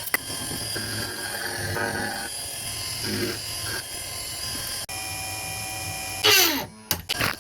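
CNC milling machine running, a steady high spindle whine whose pitch changes between edits, with a loud falling whine about six seconds in.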